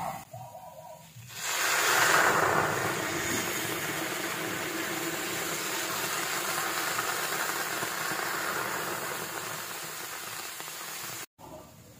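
Lemon soda poured into a hot pan of crabs, sizzling on the hot metal: a loud hiss that starts suddenly about a second in, is strongest at first and slowly fades, then cuts off suddenly near the end.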